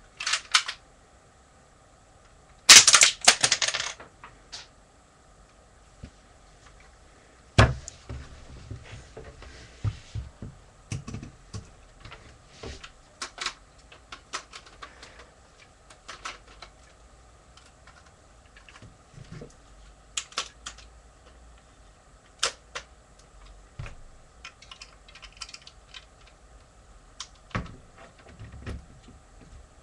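Plastic Lego parts clicking and rattling as the brick-shooter gun is handled, with a dense run of sharp clicks about three seconds in and scattered single clicks after.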